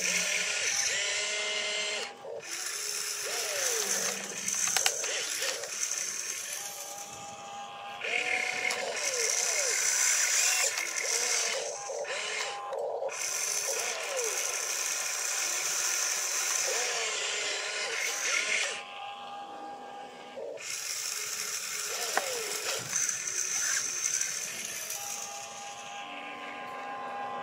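Small electric motors and gearboxes of a radio-controlled excavator whining as it works its boom, arm and bucket, the pitch rising and falling with each move, in short runs with brief pauses.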